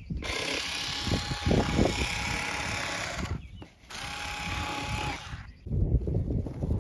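Cordless electric rotary cutter running with a steady motor whine as it cuts through fiberglass cloth. It runs for about three seconds, stops briefly, then runs again for a second and a half.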